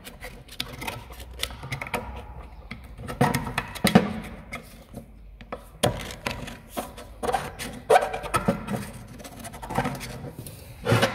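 Screwdriver scraping and picking at the old wheel bearing's ball cage and the crud inside a Citroen C15 front hub carrier: irregular metal scrapes, clicks and taps.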